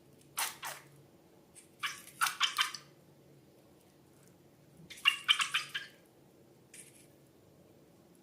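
Sticky slime being squished and worked by hand: short clumps of wet, crackly popping about half a second, two seconds and five seconds in, with a brief one near the end.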